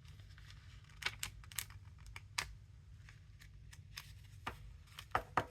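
Sheets of printed paper being handled on a tabletop: scattered light taps and clicks, a few every second or two, over a steady low hum.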